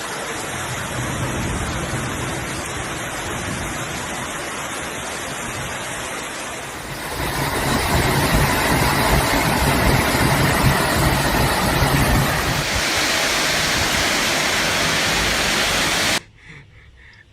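Storm wind and heavy rain as a steady rushing noise, buffeting the microphone; it grows louder about seven seconds in and cuts off suddenly near the end.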